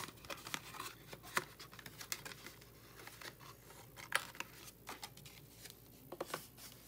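Thin cardboard and paper handled up close: a card photo frame being folded and a photo card slid into it, giving scattered soft clicks, scrapes and rustles.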